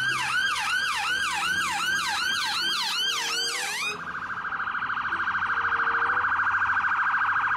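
Ambulance's electronic siren: a fast rising-and-falling yelp, about three sweeps a second, switching about four seconds in to a rapid pulsing tone at a single pitch.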